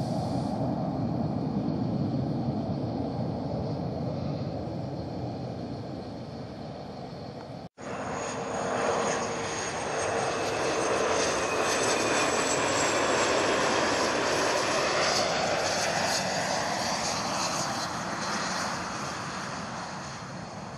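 Jet airliner engines in two separate clips joined by an abrupt cut about eight seconds in. The second is louder, with a high whine over a steady hum, and it swells and then fades near the end as the aircraft goes by.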